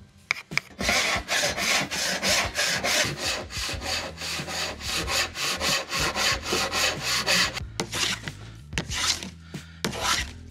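Hand tools working a maple board: rapid, evenly repeated rasping strokes of a hand saw resawing it, then a few slower, separate hand-plane strokes near the end.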